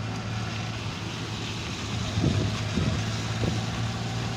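Car driving along a road, its engine and tyres making a steady low hum. A few brief louder sounds come a little past halfway.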